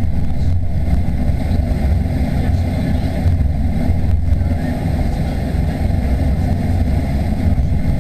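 Steady low rumble inside the cabin of a Boeing 737-800 during taxi, from its CFM56 engines at idle.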